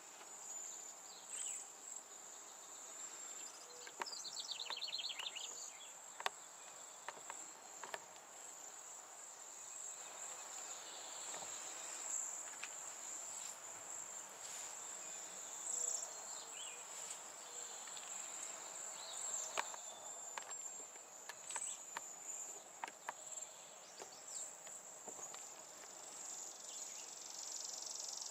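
Steady high-pitched insect chorus. A quick bird trill of rapid descending notes comes about four seconds in, and faint scattered clicks and taps are heard throughout.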